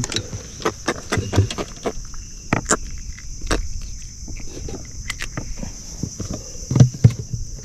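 Irregular knocks, taps and rustles from unhooking a small silvery fish (kulu-kulu) by hand on a fiberglass skiff's deck, with the landing net alongside. A steady high insect drone runs underneath.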